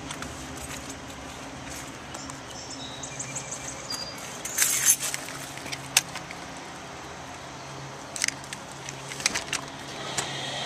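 Keys jangling and clicking while a swipe card is used at a door's card reader, with a few sharp clicks, then the door being opened near the end, under a steady low hum.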